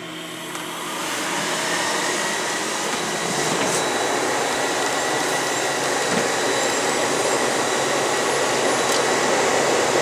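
nCube MediaCube video-on-demand server powering up: its cooling fans spin up over the first second or two and then run loud and steady, with a thin steady whine through the noise.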